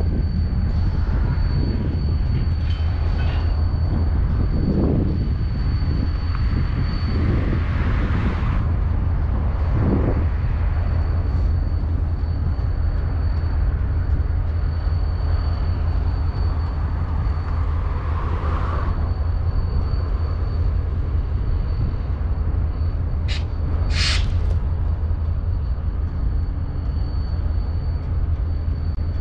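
EMD SD40-2XR diesel-electric locomotive running on its turbocharged two-stroke V16 EMD 645 engine: a steady deep rumble with a thin, steady high whine over it. Two short high-pitched sounds about a second apart near the end.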